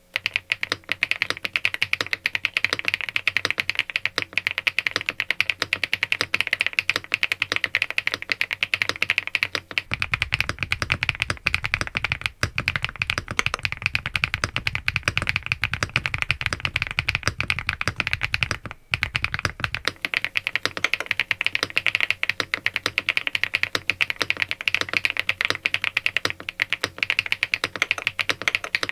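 SPM Joyakdol 75 mechanical keyboard in its stock, as-shipped build being typed on steadily, with dense key clacks and a brief pause a little past the middle. For about ten seconds in the middle the keystrokes carry a deeper, heavier low end.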